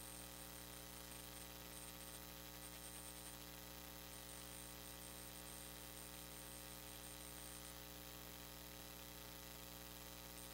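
Faint, steady electrical mains hum with its overtones, with a faint high-pitched whine that comes and goes.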